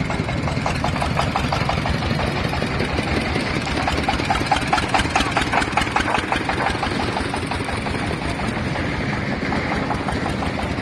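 Diesel engine running with a rapid, even chugging knock over a steady rumble; the knocking grows loudest about halfway through, then fades back.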